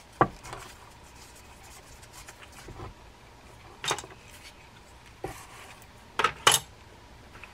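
Handling noise from a partly dismantled Penn Fierce III spinning reel that has seized: light rubbing and scattered sharp clicks and knocks of the reel body and parts in the hands, with a loud double click a little after six seconds in.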